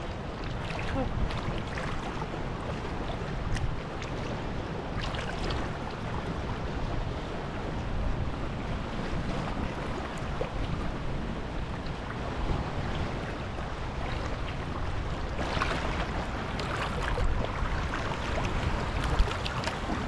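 Sea water sloshing and lapping around a person wading waist-deep, under a steady low rumble of wind on the action camera's microphone, with a few brief louder splashes about five seconds in and again around fifteen to seventeen seconds in.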